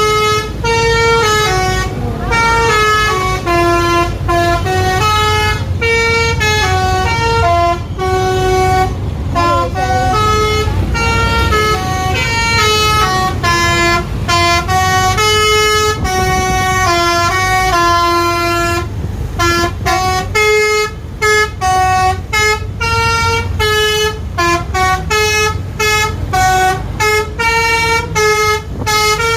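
Bus 'telolet' basuri horn playing a melody of held notes that step up and down in pitch, over a steady low engine rumble. About two-thirds of the way through, the notes turn short and clipped, with brief gaps between them.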